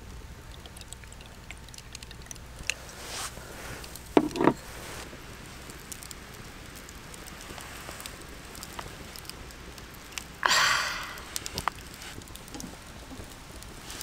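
Fire in a charcoal grill crackling with scattered small pops, with a sharp knock about four seconds in and a short hissing burst about ten and a half seconds in.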